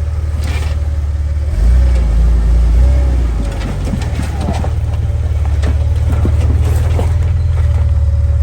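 Off-road vehicle engine running while driving a rough trail, getting louder about a second and a half in and easing off a couple of seconds later, with scattered knocks and rattles from the bumps.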